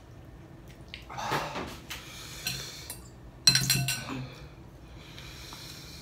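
Metal forks clinking and scraping against ceramic noodle bowls, with one loud clink that rings briefly about three and a half seconds in.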